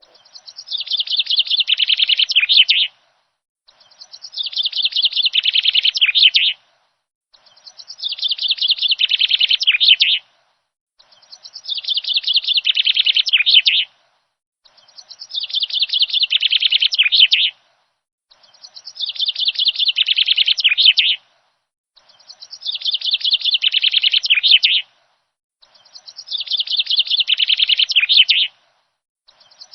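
A recorded songbird's song looped: the same song of rapid chirps, growing louder over about three seconds, repeats identically eight times with short silent gaps between.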